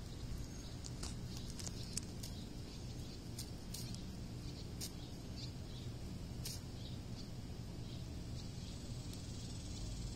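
Outdoor background: a steady low rumble with scattered short, high-pitched ticks and chirps.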